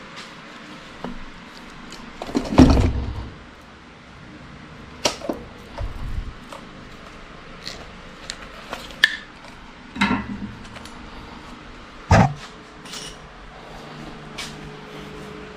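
Irregular metallic clanks and knocks of tools and engine parts being handled during an LS V8 teardown, with a heavier thud about two and a half seconds in.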